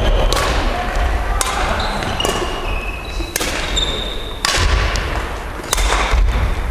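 Badminton rally: rackets hitting a shuttlecock in sharp cracks about once a second, echoing in a large gym hall. Short high squeaks come between some of the hits.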